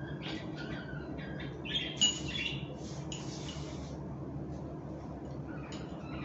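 Small bird chirping in short, high calls, some with brief gliding notes, over a steady low hum.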